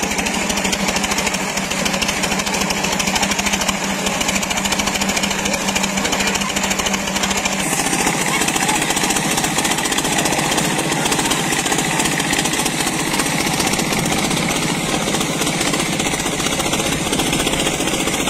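Engine-driven water pump running steadily with a rapid thumping beat, water gushing out of its outlet pipe. The engine sound changes abruptly about eight seconds in.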